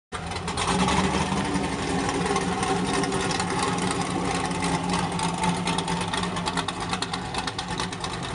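Chevrolet Camaro's engine idling steadily, cutting in abruptly at the start.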